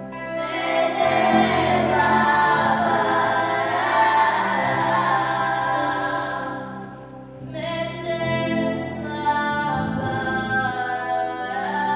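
Children's choir singing, with electronic keyboard accompaniment holding steady low notes; the voices drop away briefly about seven seconds in and then come back.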